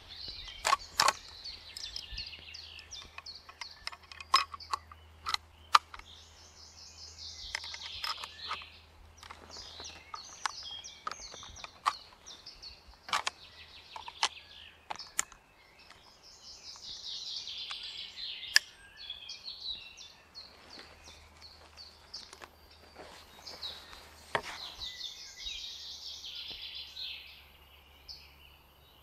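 Sharp metallic clicks and clacks of a Winchester Model 1895 lever-action rifle being worked by hand, its lever and bolt opening and closing as cartridges are handled. A songbird sings in repeated high phrases behind.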